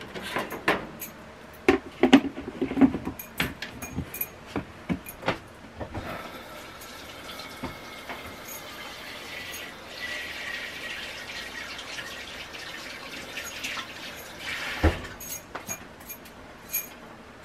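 Clicks and knocks as raw chicken strips drop into a plastic container of seasoned flour and its plastic lid is snapped on. After about six seconds comes a steady rush of running water like a kitchen tap, and a single thump near the end.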